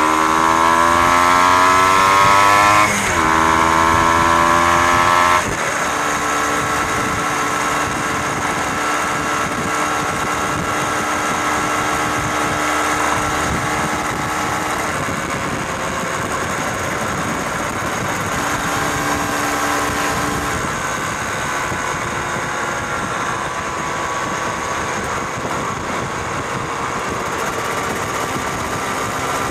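Motorcycle engine heard on board, pulling up through the gears with two upshifts in the first six seconds, then running at a steady cruising speed with wind and road noise.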